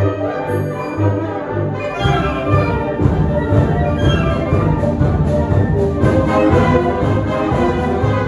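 Youth concert band playing, led by brass chords; about two seconds in, the full band comes in fuller and louder.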